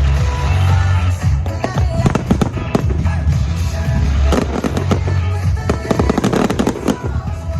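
Aerial fireworks going off in quick succession, with sharp bangs and crackling, over loud music with a heavy bass beat.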